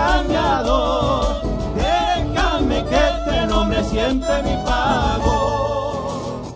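Live Argentine folk band playing chaqueñada music: acoustic guitar, violin and bombo legüero drum keep a steady beat under a wavering melody line. The music gets quieter near the end.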